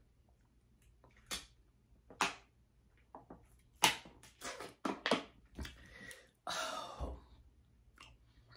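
Plastic water bottle handled and drunk from: a string of sharp crackles and clicks from the thin plastic, with a longer crinkling crackle and a low knock about seven seconds in.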